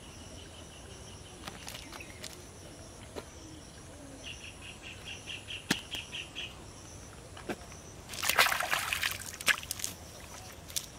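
Caught fish flapping in a cast net on a muddy bank: a brief burst of flapping and rustling about eight seconds in, with a few light clicks around it.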